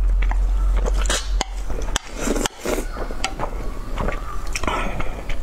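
Close-miked eating sounds: spicy noodles slurped and chewed, then a braised egg bitten, with chopsticks clicking against a ceramic plate several times.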